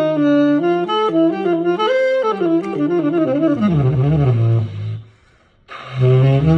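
Selmer Varitone tenor saxophone played through its Varitone amplifier: a melody of stepped notes that wanders down into low, wavering notes. It breaks off briefly about five seconds in, then comes back on a strong low note.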